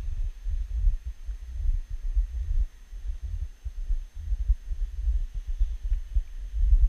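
Low, irregular rumble buffeting the camera microphone, swelling and dropping every fraction of a second with nothing higher-pitched above it.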